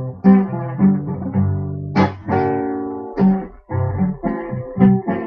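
Guitar played solo, a run of plucked notes and chords with a sharp full strum about two seconds in.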